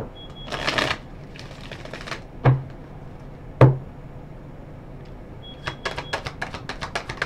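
Tarot cards being handled on a tabletop: a short rustling slide of cards, two sharp knocks against the table, then a quick run of crisp clicks, about six a second, near the end as the deck is shuffled.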